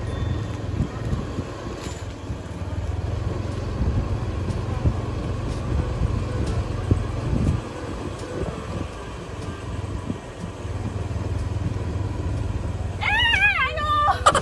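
Low rumble from riding a bicycle along a rough concrete lane: wind buffeting the phone's microphone and tyres rolling, with scattered knocks and rattles from the bike.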